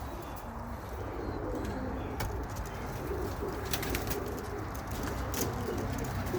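Domestic pigeons cooing in a loft: low, warbling coos repeating throughout, with scattered light clicks.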